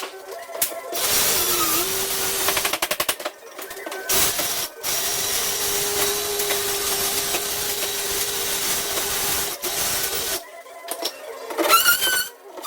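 A power tool running hard in several bursts with a steady hum under a hiss, with a quick rattle of rapid clicks about three seconds in; it stops a little after ten seconds, and warbling tones follow near the end.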